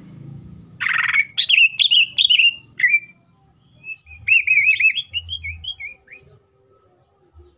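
Caged male green leafbird (cucak ijo) singing a song filled with mimicked phrases. A harsh opening note about a second in, then a quick string of loud chirps, a short pause, and a run of rapid warbled trills that fades out around six seconds in.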